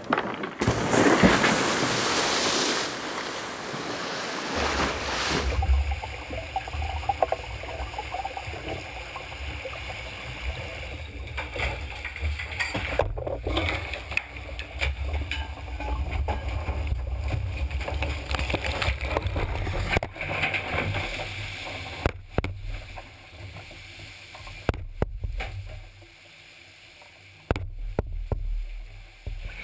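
Seawater rushing and splashing around the capsized yacht's hull for the first few seconds. Then water streaming, gurgling and dripping inside the upside-down cabin over a low rumble, with several abrupt cuts in the sound.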